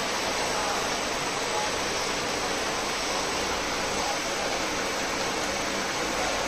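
Flameproof lab disperser running: its electric motor and the disperser blade churning liquid in a square tin make a steady, even rushing noise.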